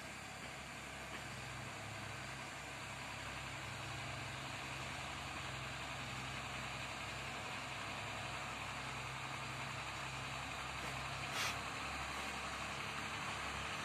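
Heavy trucks' diesel engines running low and steady, slowly growing louder, under an even hiss. A brief hiss about eleven seconds in.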